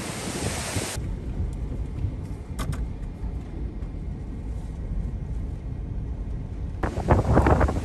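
Hurricane wind and rain buffeting the microphone: a hiss at first, then a low rumbling, then heavy, uneven gusts near the end.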